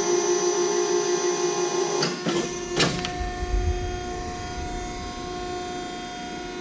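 Hydraulic pump of a Wysong 60-ton press brake running with a steady, multi-toned hum. About two to three seconds in come a few sharp clicks, after which the hum changes pitch and a low rumble joins it.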